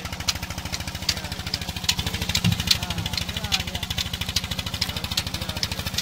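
Engine driving a sugarcane crusher, running at a steady speed with a fast, even chugging, and short sharp clicks that recur about every half second.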